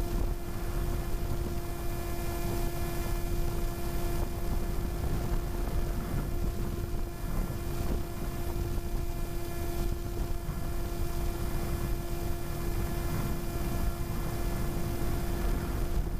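Multiplex Easystar 2 RC glider's electric pusher motor and propeller, heard from the onboard camera: a steady whine at constant throttle over a low rumble of wind on the airframe and microphone. The motor cuts off at the very end.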